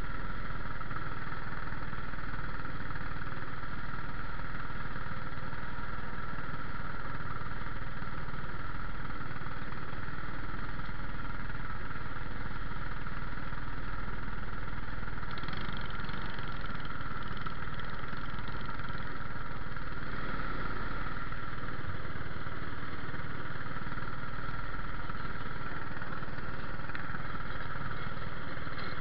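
Small cyclekart engines idling steadily.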